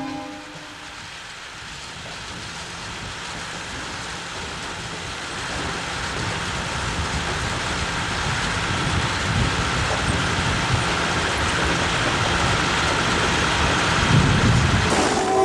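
Beets pouring out of a harvester's tank into a trailer, a dense rattling rush of tumbling roots over the running machinery, growing steadily louder.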